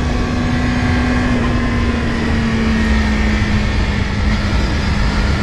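Yamaha R6 inline-four engine running at steady revs while the motorcycle is ridden through a corner, with heavy wind and road noise. The engine note dips slightly about a second and a half in, then holds steady.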